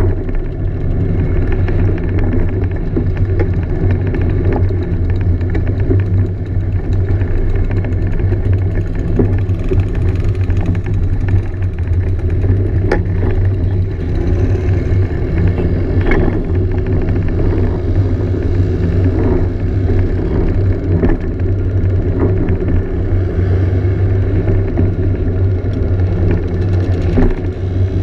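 Scooter engine running steadily while riding, heard from on board, with a few faint clicks over it.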